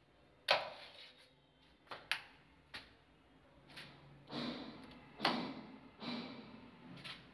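A run of sharp clicks and knocks, about nine over several seconds with the loudest near the start and about two-thirds of the way in, from push buttons and switches on a pump starter control panel being pressed and handled.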